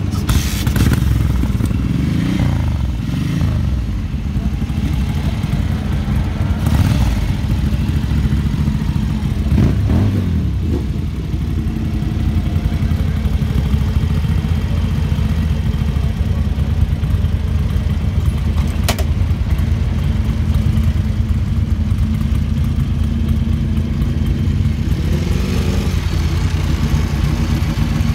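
Ducati Mike Hailwood Replica's air-cooled V-twin engine idling, revved up and let back down about four times, the last near the end.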